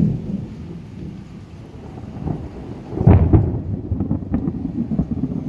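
Thunder rumbling low, swelling suddenly about three seconds in and rolling on.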